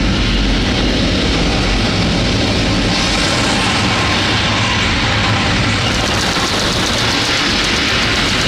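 Saturn V rocket launch played loud over a theater sound system: a steady, dense engine rumble of liftoff that grows brighter and hissier about six seconds in.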